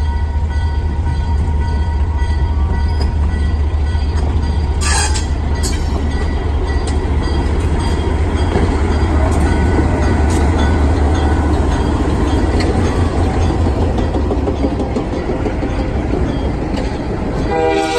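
Diesel locomotives passing close at low speed: a heavy, steady engine rumble as the lead units go by, then the deep rumble drops away about fifteen seconds in, leaving the lighter rolling of the cars' wheels on the rails.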